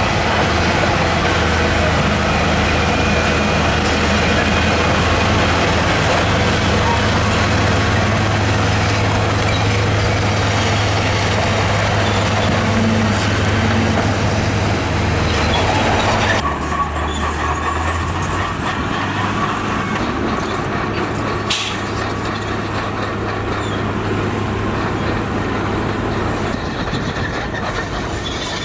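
Heavy diesel engine of construction machinery running steadily. The sound changes abruptly about sixteen seconds in, and there is one sharp knock a few seconds later.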